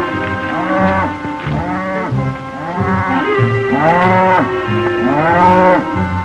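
A herd of cattle mooing and bawling, several overlapping calls that rise and fall in pitch, the two loudest about four and five and a half seconds in, over background music.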